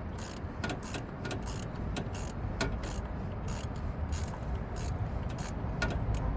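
Irregular light clicks and knocks, several a second, of hands and tools working parts loose in a car's engine bay, over a steady low rumble.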